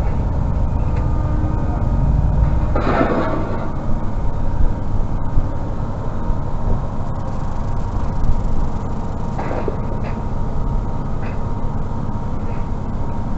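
Vehicle on the move: a steady low engine and road rumble, with two short louder noises about three and nine and a half seconds in.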